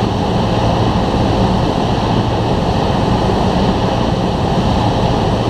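Cessna 172's piston engine and propeller droning steadily in flight.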